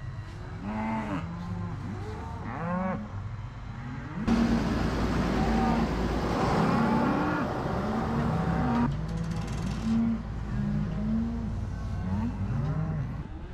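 Cattle mooing and bawling over and over, several animals calling in turn and overlapping. From about four seconds in until about nine seconds, a tractor running with a feed mixer wagon adds a loud, steady rumbling din beneath the calls.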